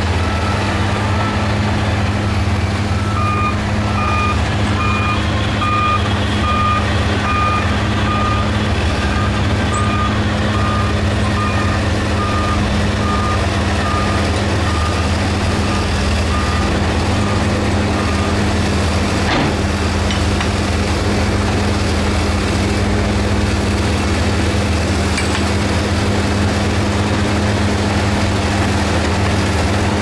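Diesel engines of heavy earthmoving machinery, dump trucks and a bulldozer, running steadily, with a reversing alarm beeping about twice a second from a few seconds in until a little past the middle.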